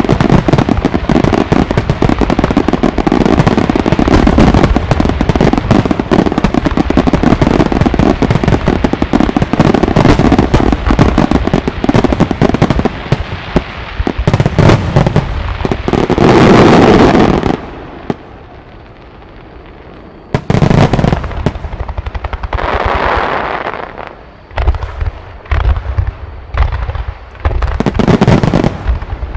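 Japanese aerial firework shells bursting: a rapid, continuous barrage of bangs for about the first half, then one long loud burst, a short lull, and separate bursts scattered towards the end.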